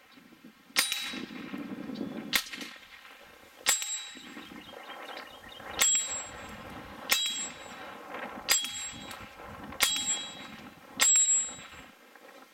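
Eight .22 LR pistol shots from a Browning Buck Mark, about one and a third seconds apart. Each shot is followed by a short metallic ring from the hanging steel groundhog target being hit.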